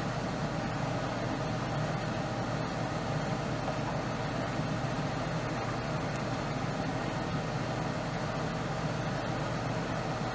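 Steady low hum with a light hiss from a kitchen stove area, a gas burner lit under a wok of thickening sauce; no separate stirring or sizzling sounds stand out.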